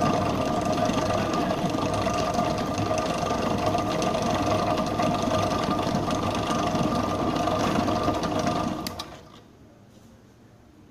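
Electric bakery mixer running with its hook turning through the mixture, a steady mechanical hum. It is switched off about nine seconds in and runs down within about half a second, with a few clicks as it stops.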